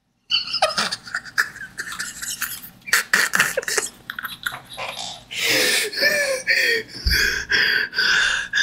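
A man laughing hard into a close microphone: breathy, wheezing bursts at first, then from about halfway a run of loud laughs at roughly two a second.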